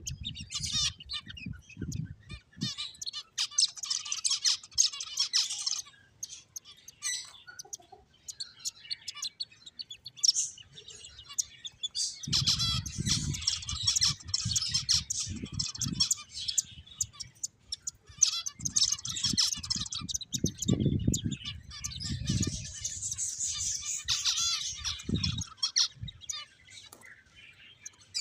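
Finches chirping in quick, busy runs of short high calls, with stretches of low thuds and rustling mixed in about halfway through and again later.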